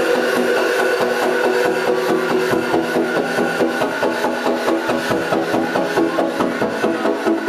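Electro house music played loud over a club sound system: sustained synth chords and melody over a steady beat, thin in the bass.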